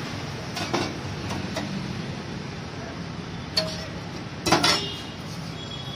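Metal kitchen utensils clinking a few times, loudest about four and a half seconds in, over a steady background hiss.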